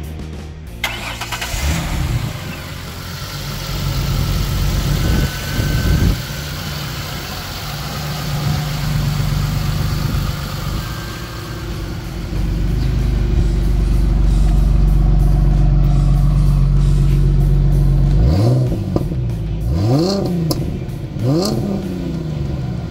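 A 2007 Ford Mustang's 4.0-litre V6 starting about a second in and settling to idle, with a brief rev around five seconds. It is then held at a steady higher speed for a few seconds, and near the end it is blipped three times in quick succession, each rev rising and falling.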